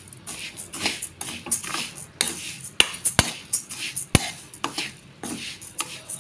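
Steel spoon stirring parboiled rice as it dry-roasts in a pan: the grains rasp and the spoon scrapes across the pan in irregular strokes, with a few sharp clinks of the spoon against the pan about three and four seconds in.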